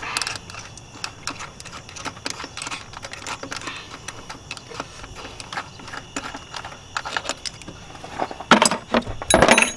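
Small metallic clicks and rattles as a power steering pulley installer's threaded stud is spun out of the pump shaft by hand, with a louder metal clatter near the end as the tool comes off.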